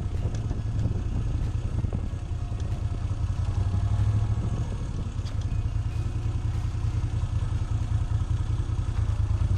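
Moto Guzzi V7's air-cooled V-twin engine running steadily at low speed, a deep steady drone with light mechanical clatter, getting louder right at the start.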